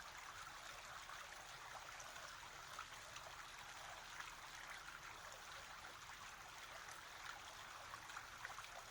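Faint, steady trickle of running water, continuing unchanged throughout.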